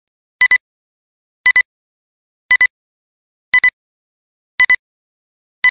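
Electronic double beep repeating about once a second, six times: each pair is two short, high beeps with dead silence between the pairs.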